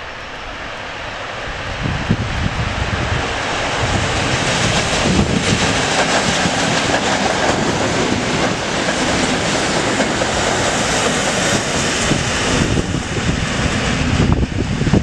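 EN57 electric multiple unit running past at speed: a rushing rumble of wheels on rails swells over the first couple of seconds and stays loud while the cars go by, with clattering over rail joints near the end as it draws away.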